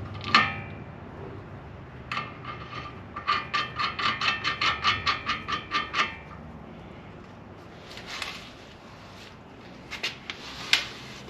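Ratchet wrench clicking in quick runs, about four to five clicks a second, while drawing a new wheel stud into the hub with a bearing-backed stud-pulling tool. A few separate clicks and knocks near the end.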